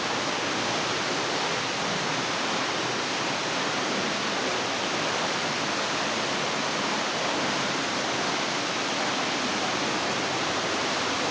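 Small waterfall splashing into a rock pool: a steady, even rush of falling water.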